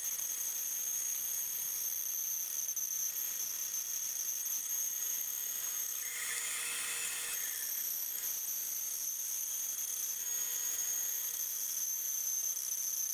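Bandsaw running and resawing a block of mahogany into thin veneer, the blade cutting steadily along the grain with a steady high whine.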